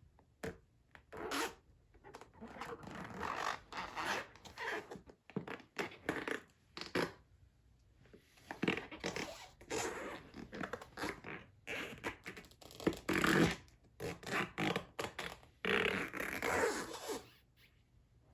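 Shibata rubber waders squeaking and rubbing as the rubber is flexed and rubbed, in an irregular run of short and longer bursts with brief pauses between.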